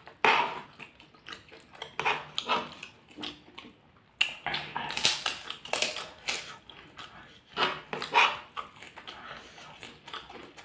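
Close-up eating sounds: a fried cracker (kerupuk) being bitten and crunched, with chewing and mouth noises in irregular bursts.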